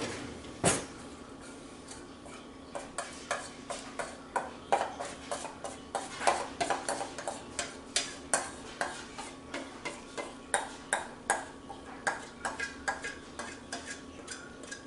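Metal spoon scraping and tapping against a stainless steel mixing bowl to clear the last of the batter into the pan: a knock about half a second in, then a quick, uneven run of clinks and scrapes, about three a second.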